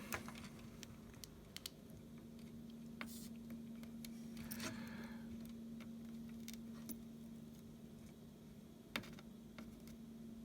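Faint, scattered small clicks and taps of wires and a circuit board being handled during soldering, over a steady low hum.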